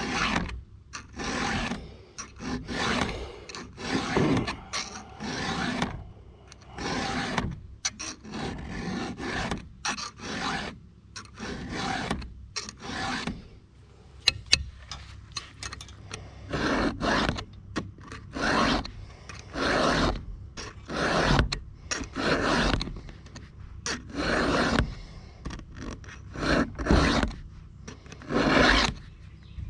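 Chainsaw chain being sharpened with a hand file: repeated rasping file strokes across the cutters, roughly one a second.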